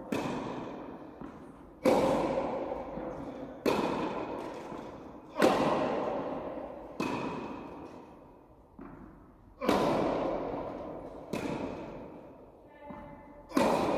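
Tennis ball hit back and forth with rackets in a rally: a sharp pop about every second and three-quarters, with a couple of softer bounces between. Each hit rings out with a long echo in the large indoor tennis hall.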